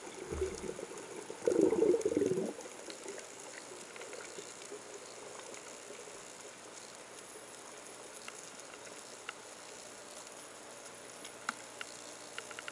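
Underwater sound picked up at depth: a brief louder rush of water movement around the gun about a second and a half in, then a steady faint hiss with scattered sharp clicks and crackles.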